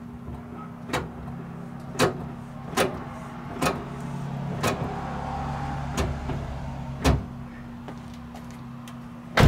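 A car's brake pedal pumped repeatedly, a sharp knock with each stroke about once a second, over a steady low hum, with a louder knock at the very end. The pumping pushes the freshly compressed caliper pistons back out against the new pads until the pedal firms up.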